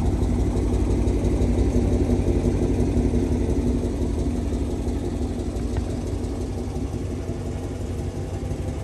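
2013 Dodge Challenger R/T's 5.7-litre Hemi V8 idling steadily, growing a little quieter toward the end.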